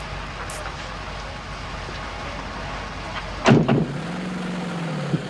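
Steady car and road noise. About three and a half seconds in, a sudden loud sound falls in pitch and settles into a steady low drone. It is a man's mouth-made imitation of a strange noise from the car.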